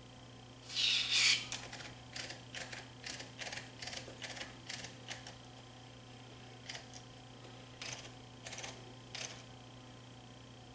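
A short hissing spray from an aerosol can of contact cleaner into the amplifier's record-out selector slide switch, in two quick pulses about a second in. A run of light clicks follows, scattered over the next several seconds, over a faint steady hum.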